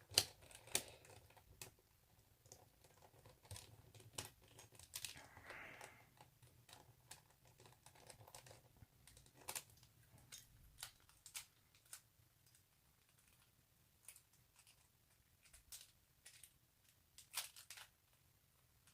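Sparse, faint clicks and knocks of plastic speed-cube pieces being handled and pried at while trying to pop a piece out of a 3x3 cube, with a brief scrape about five seconds in.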